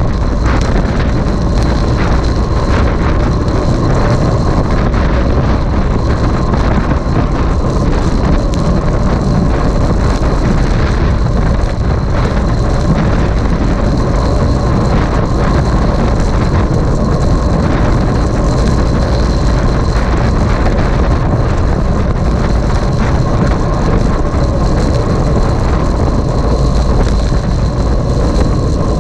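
Steady wind buffeting and road rumble on the microphone of a camera riding on a racing bicycle at speed, with a faint steady whine over it.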